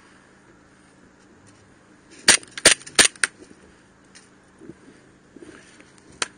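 Airsoft pistol fired four times in quick succession, each shot a sharp crack, about two seconds in; a single further click near the end.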